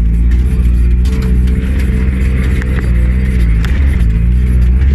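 Off-road vehicle's engine running steadily under load on a rutted dirt track, heard from inside the cab, with occasional knocks and rattles from the bumps. The engine note dips briefly about three and a half seconds in, then comes back up.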